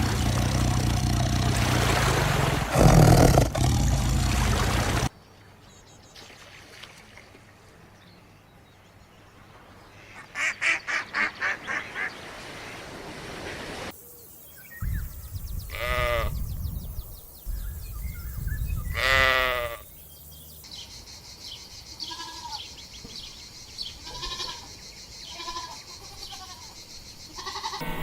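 A run of farm animal calls. First a loud rushing noise, then a quick string of about six short high calls, then two long wavering calls that fall steeply in pitch, like a bleat or a whinny, and finally scattered short calls.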